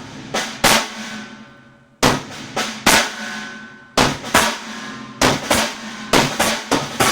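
Snare drum struck with sticks in groups of four strokes (right, left, left, right sticking, half of a six-stroke roll), each stroke ringing on, the group repeated about every two seconds. From about five seconds in the strokes run on back to back.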